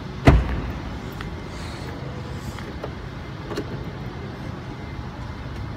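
A single heavy thump about a quarter of a second in, followed by a steady low background hum with a few faint taps.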